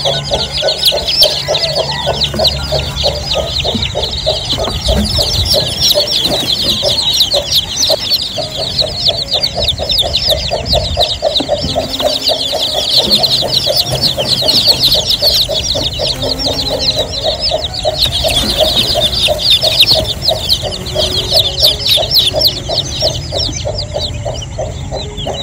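A brood of newly hatched chicks peeping continuously in a dense, high chorus, over a lower, rapid and regular clucking.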